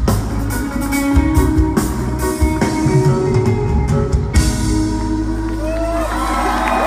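Live reggae band ending a song: drum and cymbal hits over guitar, then a final chord rings out about four seconds in. Audience whistles and cheers come in near the end.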